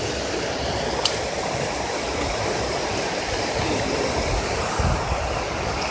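Steady rush of river water flowing at a low-water creek crossing, with a single sharp click about a second in.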